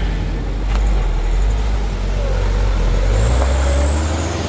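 Diesel engine of a Mitsubishi light box truck pulling up a steep, rough dirt grade and passing close by. The low engine rumble shifts in pitch about three seconds in as the truck goes past.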